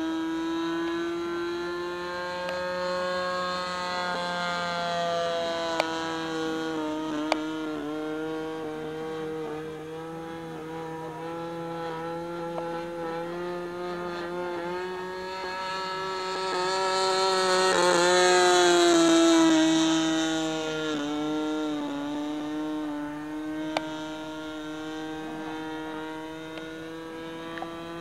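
Small engine and propeller of a radio-controlled scale model Fairchild PT-19 trainer in flight, a steady buzz that wavers in pitch. About two-thirds of the way through it swells to its loudest as the plane passes close, and the pitch drops as it goes by.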